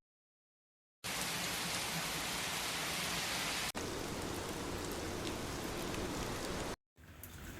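A steady rain-like hiss starts about a second in. It changes to a slightly different, lower-weighted hiss about two and a half seconds later and cuts off near the end. After a brief gap a fainter, crackly hiss begins.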